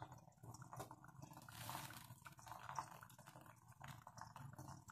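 Faint sizzling of an egg frying in a little oil in a steel kadai on a low gas flame, with a few light ticks and a brief hiss about one and a half seconds in.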